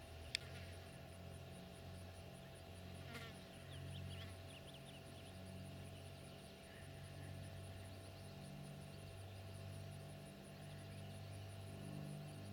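Distant drone of a Cessna 421's twin piston engines and propellers as the plane climbs away. The drone wavers in pitch and swells slightly near the end, with a steady high pulsing of insects above it and one sharp click just after the start.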